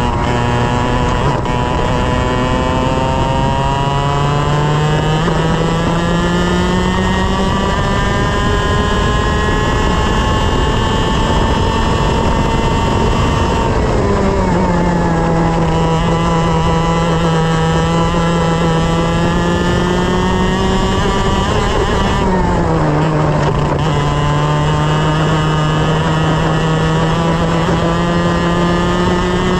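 A 125cc single-cylinder two-stroke TaG kart engine running at racing speed, heard on board. Its pitch climbs over the first several seconds, drops sharply twice (about halfway through and again near the end), and climbs again after each drop.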